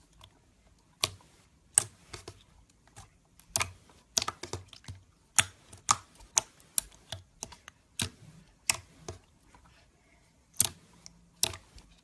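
Slime being squeezed and pressed by hand, making sharp, irregular clicks and pops, some in quick clusters.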